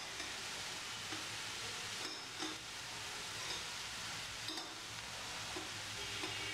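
Steady sizzle of grated carrot, onion and cabbage frying in oil in a steel kadai, with water boiling in the pot beside it. A few light clinks of a metal slotted spoon come as macaroni is lifted out of the water.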